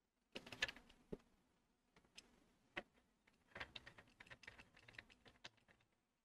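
Faint handling noise from cables and camera gear being worked by hand: scattered small clicks and rustles. The loudest cluster comes a little under a second in, and a quicker run of clicks follows in the second half.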